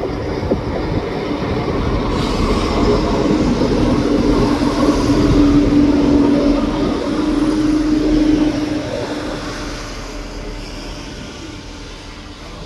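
LNER Azuma intercity train running past on curved track: it grows louder to a peak around the middle and then fades, with a steady whine held for several seconds as it nears.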